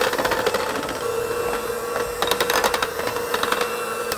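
KitchenAid electric hand mixer running steadily with a constant motor whine, its wire beaters clicking against a glass bowl as they mix flour into cake batter.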